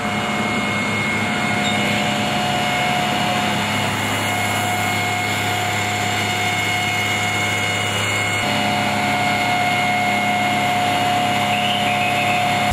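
Fire engine's motor running steadily: a constant mechanical hum with a steady higher whine, the low hum shifting slightly about eight seconds in.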